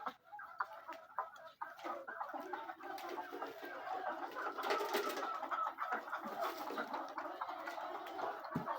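A flock of chickens in a poultry house, many birds clucking and calling at once in a continuous chatter.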